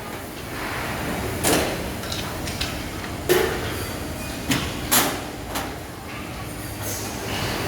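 A handful of sharp knocks and clatters, irregularly spaced, over a steady background noise.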